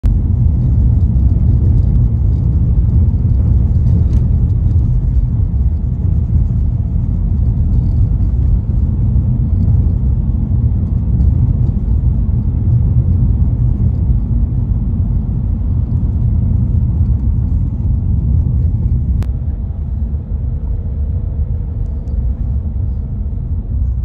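Car driving along a rough country lane: a steady low rumble of tyres and engine heard from inside the car, easing off a little near the end as it slows.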